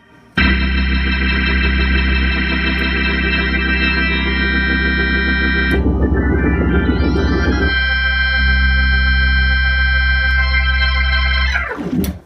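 Hammond B3 organ holding one long, loud chord, with a fast flurry of notes in the middle of the hold. Near the end the chord drops away in a quick downward sweep and stops.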